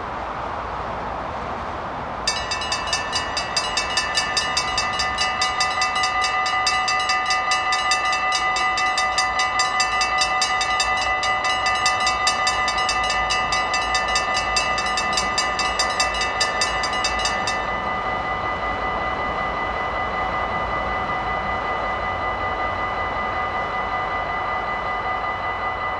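Dutch level-crossing warning bells ring in rapid, evenly repeated strikes. They start about two seconds in, as the crossing activates and the half-barriers begin to lower, and stop abruptly about eighteen seconds in, once the barriers are down. A few steady high tones carry on after the bells stop.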